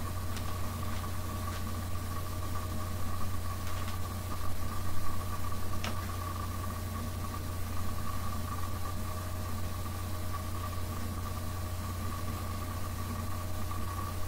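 Steady mechanical hum with a few light clicks, the sharpest about six seconds in.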